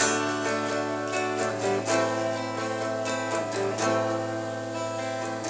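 Guitar-led band music playing an instrumental passage of a soft-rock song, with a steady low bass note underneath and no vocals.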